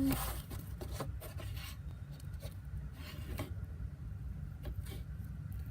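Sticky fluffy slime of glue, shaving cream and borax being stirred in a bowl. It gives irregular sticky clicks and pops with a scraping rub. These poking sounds are the sign that the slime is forming.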